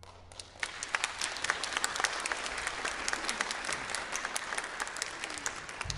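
Audience applauding, starting a moment in and going on steadily.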